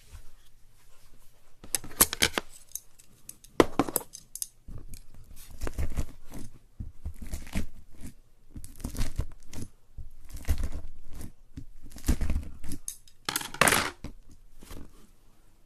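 Slime being worked by hand: a series of sticky, crackly squelches and pops, one cluster every second or so, with sharper snaps among them.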